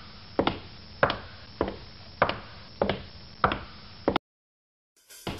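Footsteps at a steady walking pace, one sharp step about every 0.6 s, over a faint low hum. They cut off abruptly about four seconds in, and after a second of silence music starts near the end.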